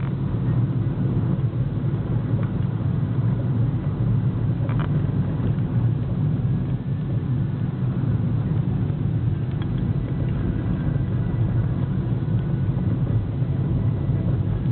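Steady low rumble of a car driving, engine and tyre noise heard from inside the cabin, with a faint tick about five seconds in.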